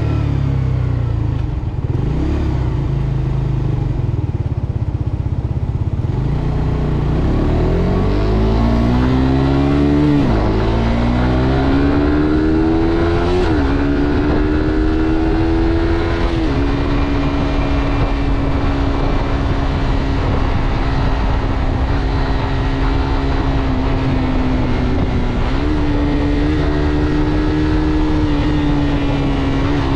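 Suzuki GSX-R125's single-cylinder four-stroke engine heard from onboard the moving motorcycle. The revs drop at first, then climb through two upshifts, with a sudden fall in pitch at each about ten and thirteen seconds in. From there the engine runs at a steady cruising pitch, with a brief dip near the end.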